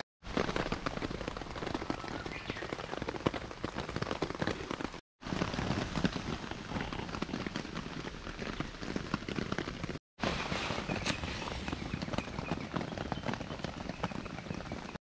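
Steady rain, many close drops ticking on a camp tarp overhead. It drops out for a moment twice, about five and ten seconds in.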